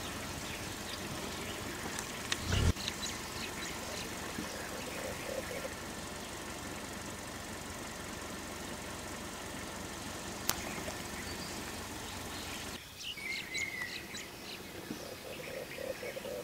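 Forest ambience: a steady background hiss with scattered bird chirps, and a brief low thump about two and a half seconds in. The background drops suddenly near the end, followed by more bird calls.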